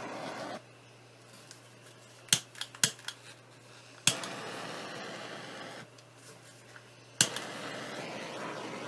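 Handheld butane torch: its flame runs with a steady hiss and shuts off about half a second in. A few sharp clicks follow, then the torch lights with a click about four seconds in, runs for under two seconds, shuts off, and lights again with a click near the end.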